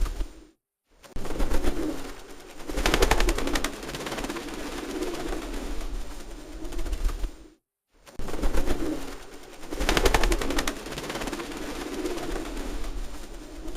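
Pigeons cooing in low, rolling coos. Twice, about 3 s in and again about 10 s in, the coos are joined by a burst of rapid clattering. The sound drops out briefly twice.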